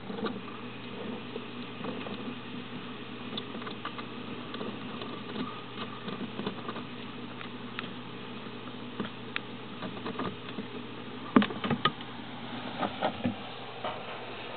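Scattered faint clicks and light taps over a steady low hum, with a few louder taps in quick succession about three-quarters of the way through.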